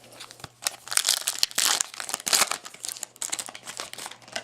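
A Topps Chrome football card pack wrapper being torn open and crinkled: a rapid, crackling run of crinkles lasting about three seconds, starting just under a second in.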